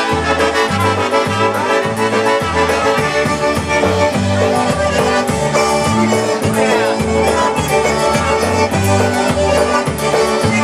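Polka band playing live: a concertina and a piano accordion carrying the tune with trumpets, over a steady two-beat oom-pah bass and drums.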